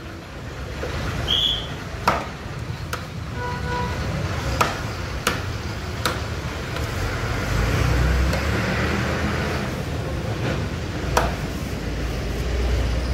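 Knife cutting tuna into chunks on a wooden chopping block, the blade knocking sharply on the block a handful of times, over a steady low rumble of road traffic.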